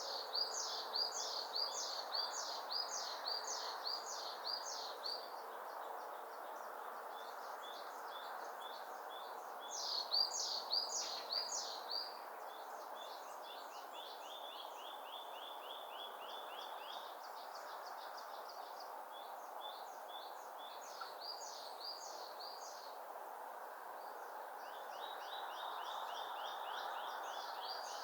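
Small songbirds singing fast trills of high repeated notes in phrases a few seconds long. The loudest phrases come at the start and again about ten seconds in, over a steady rushing background noise.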